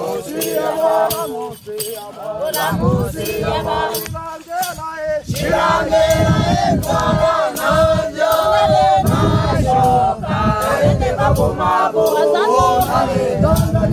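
Hadza men and women singing together, a group dance song of several voices in unison and parts, over a sharp beat about twice a second; the singing grows fuller and louder about six seconds in.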